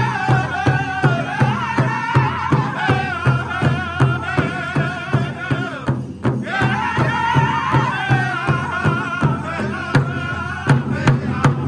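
Powwow drum group: several men striking one large rawhide drum together with padded sticks in a steady beat of about three strokes a second, while singing in unison in phrases that fall in pitch. The singing breaks off briefly about six seconds in, then comes back in over the unbroken drumbeat.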